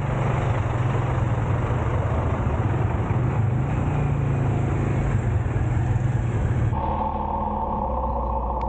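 Motorbike riding noise: the engine running steadily under a rush of wind and wet-road noise on the mounted microphone. The rush drops away abruptly near the end, leaving a quieter, steadier hum.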